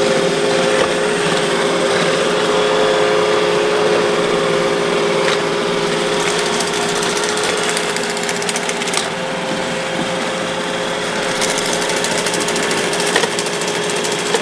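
iRobot Roomba robot vacuum running, its suction motor and brushes giving a steady whir with a few light clicks.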